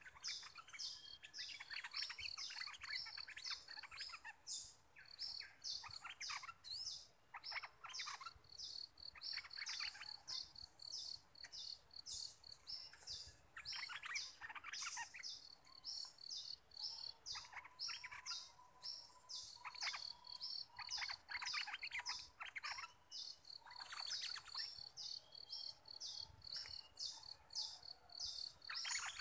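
Stripe-throated bulbuls singing: short, bubbly, warbling phrases every few seconds, over a rapid, steady series of high chips.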